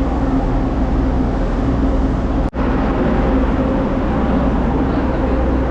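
Steady low rumble and hum of a moving vehicle, broken by a very short dropout about two and a half seconds in.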